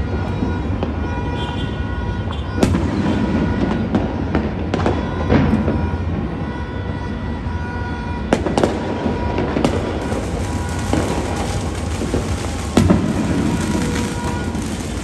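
Fireworks and firecrackers going off all across a city: a continuous rumble of distant bangs and crackling, with several louder, sharp single bangs. The loudest come about two and a half and thirteen seconds in.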